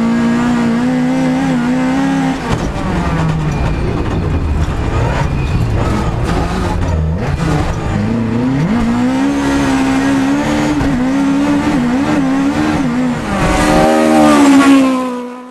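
Rally car engine at high revs, heard from inside the cabin. The revs drop away about two seconds in, climb back up about nine seconds in and hold with small wavers. Near the end it rises to its loudest and then fades out.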